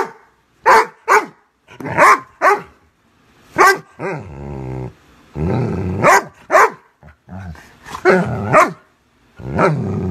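Doberman pinscher play-barking and growling: about ten short, sharp barks, mostly in quick pairs, broken by three long, low growls, each about a second.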